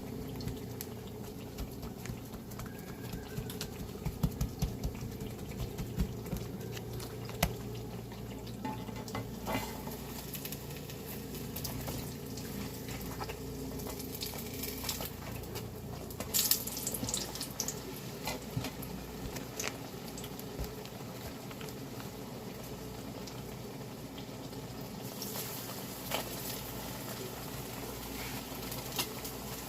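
Food cooking on a stove: a steady low bubbling with scattered small pops and crackles, and a few brief louder clusters of pops, over a faint steady hum.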